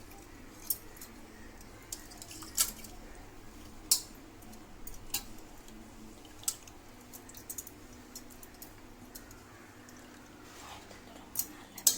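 Hands squeezing chopped banana stem soaked in buttermilk: faint wet squishing and dripping, with scattered sharp clicks.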